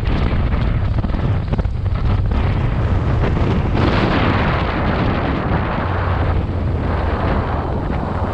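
Loud wind buffeting on the microphone over a steady low rumble, as on a moving ride, easing briefly about two seconds in and again past the middle.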